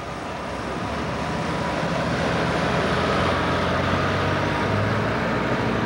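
Pro Stock pulling tractor's diesel engine running hard at the starting line, building in loudness over the first two seconds and then holding steady.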